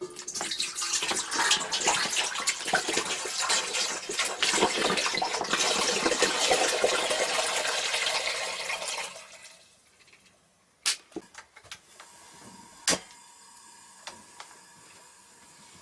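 Water running from a tap into a sink for about nine seconds, then shut off, followed by a few sharp knocks.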